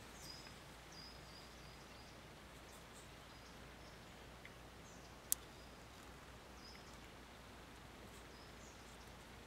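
Near silence: faint outdoor background with a few faint high chirps and one sharp click about five seconds in.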